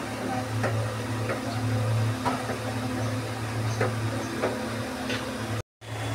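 Spatula knocking and scraping against a pan while a thick curry of soya chunks is stirred: irregular light knocks, about two a second, over a steady low hum. The sound cuts out for a moment near the end.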